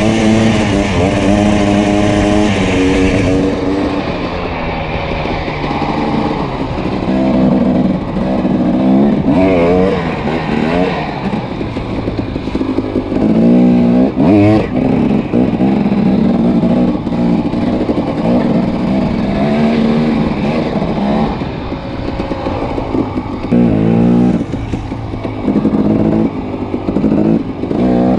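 Dirt bike engine being ridden, revving up and down over and over as the throttle is opened and closed, its pitch rising and falling every second or two.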